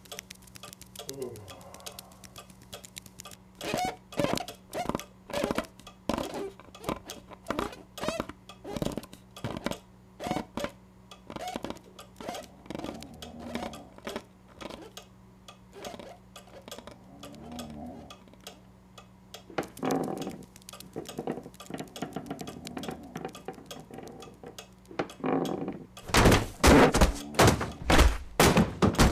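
A series of irregular light knocks and thuds. About 26 seconds in, they become loud, rapid knocking and clattering.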